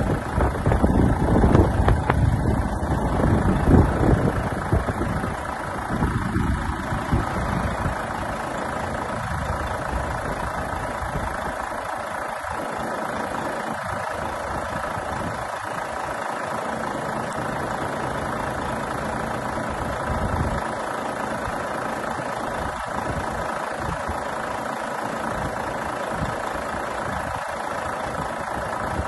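Volvo FH 500 truck's 13-litre six-cylinder diesel idling with a steady hum; it is louder and rougher for the first few seconds, then settles to an even idle.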